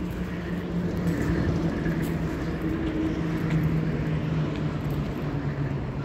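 Steady traffic noise from a busy multi-lane road, an even rumble with a faint continuous low hum running through it.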